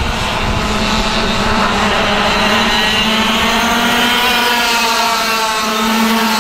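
Racing kart engine running hard at high revs, its pitch wavering gently up and down without a break.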